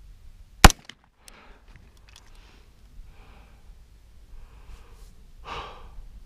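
A single shot from a KE Arms AR9 9mm pistol, sharp and loud, a little over half a second in, followed by faint breathing.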